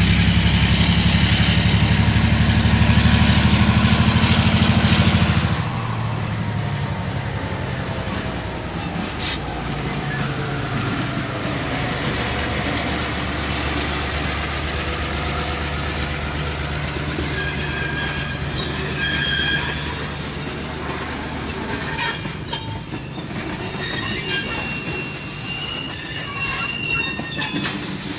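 Diesel train sounds: a deep engine rumble for the first five seconds or so that drops off abruptly, then running train noise with rail clatter and squealing tones in the second half.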